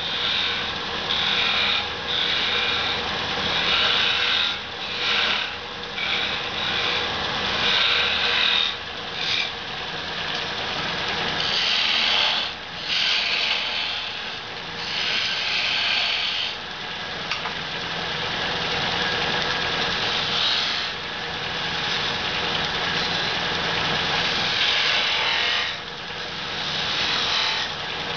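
Wood lathe running while a turning tool cuts a spinning wooden spindle: repeated rasping passes of the tool shaving the wood over the lathe's steady running drone.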